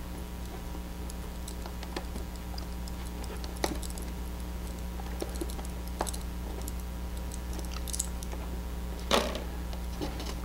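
A few scattered light clicks and taps of a small grub screw and Allen key being worked into a model aircraft's tail-wheel sleeve. The largest is a brief rustle about nine seconds in. A steady low electrical hum runs underneath.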